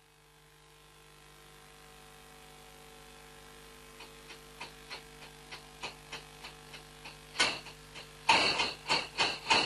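A machine's steady hum fading in, then regular clicking about three times a second that grows louder. Loud, fast, rhythmic mechanical clattering takes over from about seven seconds in.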